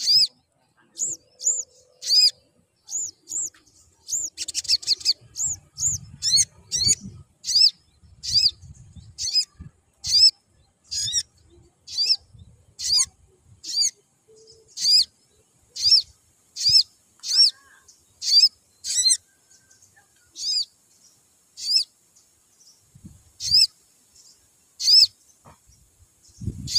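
Male olive-backed sunbird (sogon) chirping: a long run of short, sharp, high-pitched chirps, about one a second, some in quick pairs.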